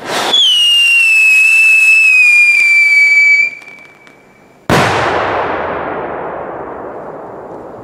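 Whistling firework with a report: a loud, piercing whistle that sinks slightly in pitch over about three and a half seconds, then fades. About a second later comes a single loud bang with a long echoing decay.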